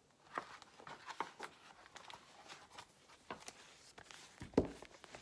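Soft scattered rustles and clicks of a hardcover picture book being handled and closed, with one louder thump about four and a half seconds in.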